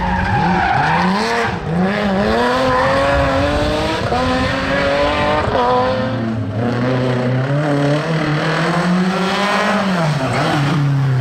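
Rally car engines revved hard at speed, their pitch climbing and dropping back again and again with the gear changes, the sound cutting from one car to the next twice. The cars include a BMW 3 Series (E21) at the start and a Peugeot 205 near the end, whose engine note climbs steadily as it approaches.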